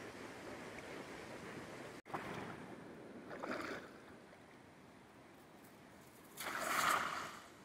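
Shallow river current running over a riffle, then, after a break in the sound, a quieter stretch with a short swish of water and a cast net landing on the river surface with a splash about six and a half seconds in, the loudest sound.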